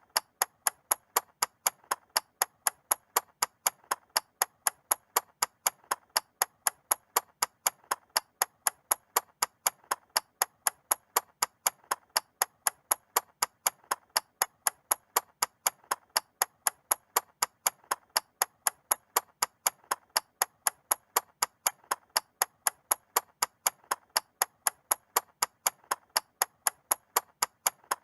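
Mechanical clock ticking steadily, with several crisp, evenly spaced ticks a second.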